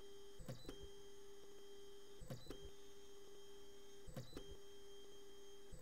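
Faint, steady whine of 3D printer stepper motors driving the print head, broken by a pair of sharp clicks about every two seconds.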